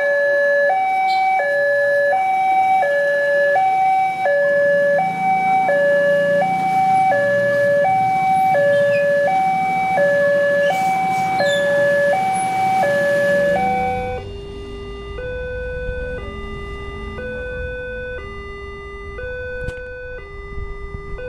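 Electronic two-tone warning alarm of a railway level crossing, stepping back and forth between a higher and a lower tone about twice a second while the red flashers are lit and the barrier is down. About 14 seconds in it changes to another crossing's alarm, lower in pitch, slower and quieter.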